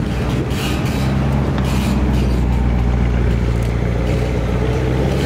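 A car engine running at a steady speed, a deep, even engine note that neither rises nor falls.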